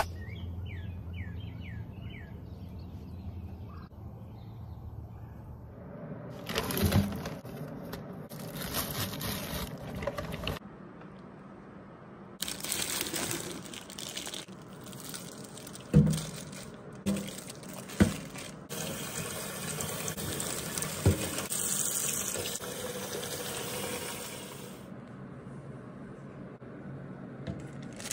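Kitchen tap water running into a stainless-steel sink over bagged frozen fish, with a few sharp knocks against the sink. A bird chirps a few times near the start.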